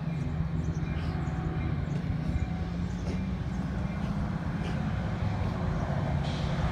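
A steady low engine rumble, even throughout, with no single event standing out.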